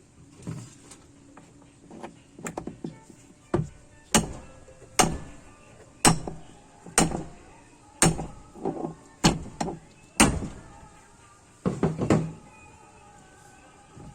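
A series of sharp knocks, about one a second through the middle, each with a short ringing tail, then a quick cluster of knocks near the end.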